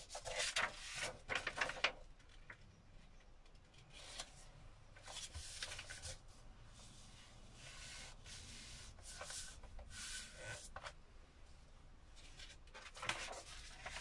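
Paint-soaked acrylic yarn being pulled out from between sheets of paper pressed down by hand, the string and paper rubbing and sliding over a cutting mat in several separate rasping strokes.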